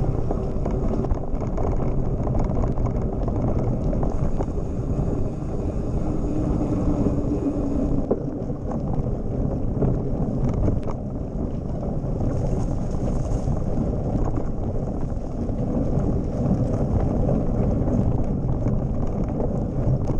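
Wind rumble on the microphone of a camera mounted on a mountain bike's handlebar, mixed with the knobby tyre rolling over a rough dirt track, with scattered small knocks and clicks from the moving bike.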